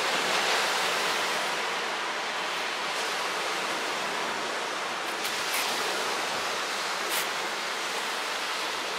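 Ocean surf washing over rocks: a steady rushing hiss, with a few brief sharp ticks past the middle.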